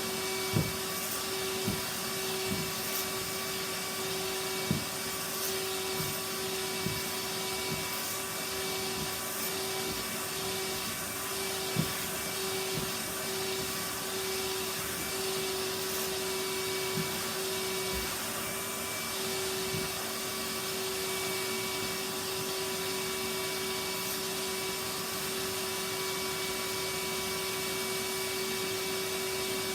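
Vacuum cleaner running steadily, vacuuming a sofa, with a constant motor hum and a few short knocks, mostly in the first half.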